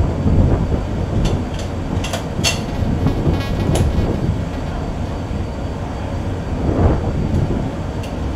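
Steady low rumble of wind and ship noise on an open deck at sea, with a few sharp clicks in the first four seconds.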